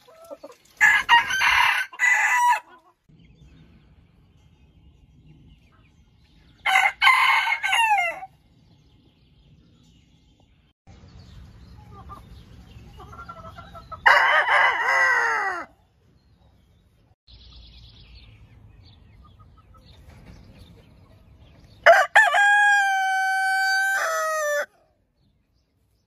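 Roosters crowing: four separate crows a few seconds apart, the last one the longest, ending on a long held note.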